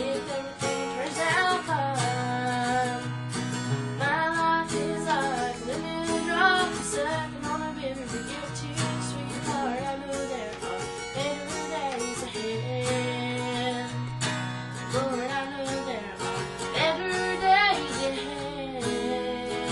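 A woman singing a country song, accompanying herself on a strummed acoustic guitar.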